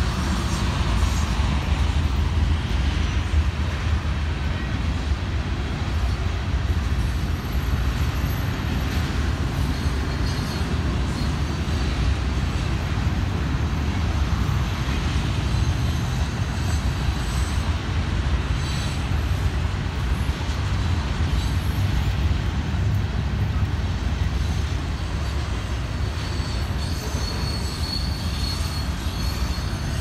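Freight train of oil tank cars rolling past, a steady low rumble of wheels on rail, with a faint high wheel squeal near the end.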